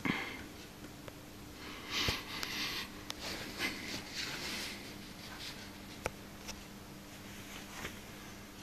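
Homemade valve amplifier with 6P14P output tubes giving a steady low mains hum, with bursts of scratchy crackling in the first half and a few sharp clicks later.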